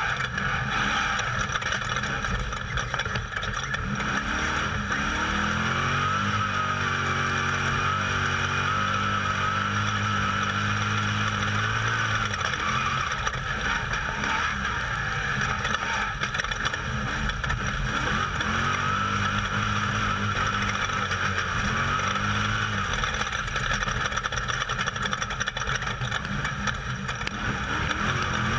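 Off-road race vehicle's engine heard from onboard at speed, over a constant rushing noise. The engine note climbs and holds for several seconds about a quarter of the way in, then drops, and rises and falls again past two thirds of the way through.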